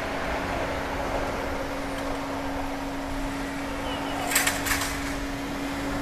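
Noise at a railway level crossing right after a train has passed: a steady wash of rail and street noise with a constant low hum, and a quick cluster of sharp clicks about four and a half seconds in.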